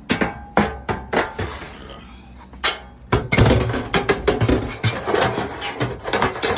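Sheet-metal floor pan clanking and knocking as it is laid into the rusted Jeep floor and shifted around, a few separate knocks at first, then a dense clatter from about three seconds in.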